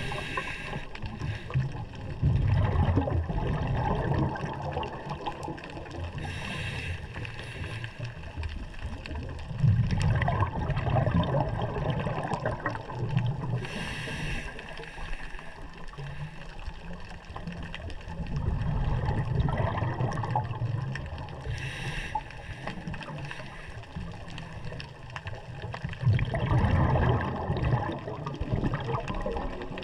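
Scuba diver breathing through a regulator underwater. About every eight seconds there is a short hiss of inhalation, followed by a longer, louder rush of exhaled bubbles.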